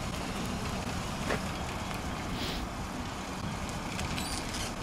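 Steady outdoor street ambience: a low rumble with a faint hiss above it, and a light click about a second in.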